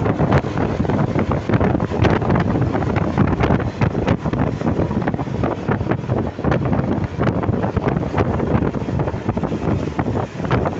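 Wind buffeting the microphone on a moving vehicle, a steady rush with rapid crackling gusts over road and engine rumble. No horn sounds.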